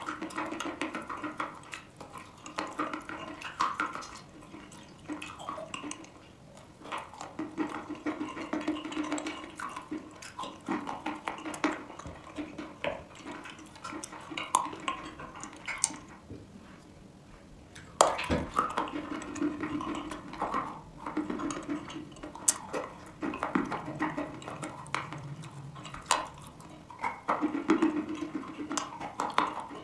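Chalk being bitten and chewed: a run of crisp crunches and clicks with softer, wetter chewing between them. One sharp, loud snap comes about 18 seconds in.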